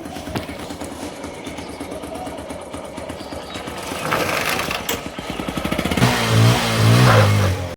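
Tractor engine running, its firing pulse growing faster and louder over the last few seconds as it revs up.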